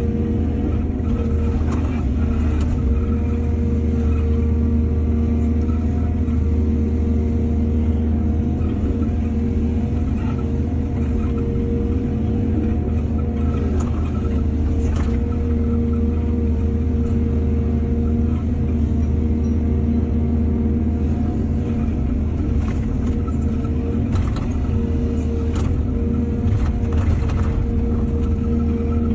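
Excavator's diesel engine running steadily under work, with scattered short clanks.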